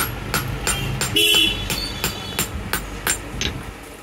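Hammer blows on a steel punch driven into an iron die block, about three sharp metallic strikes a second, growing softer near the end. A brief steady ringing tone sounds over a strike about a second in.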